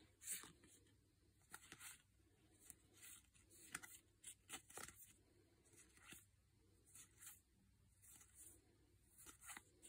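Faint soft swishes and ticks of trading cards being slid one at a time off a small stack and onto another, a dozen or so short strokes at uneven intervals.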